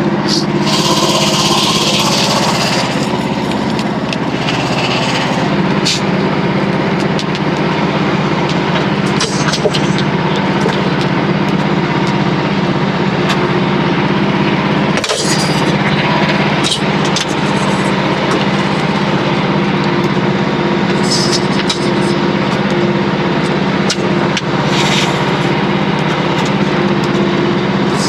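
Small gas engine of a Frontier OS27 portable band sawmill running steadily under load as the band blade saws through a red oak log. The engine note shifts slightly about five seconds in, and a few light clicks sound over it.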